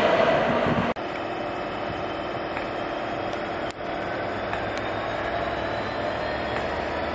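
For about a second, the noise of a freight train passing at speed, which cuts off suddenly. Then the steady hum of a Class 66 diesel locomotive's two-stroke EMD engine, running at low power as it draws a rake of coal hoppers slowly along.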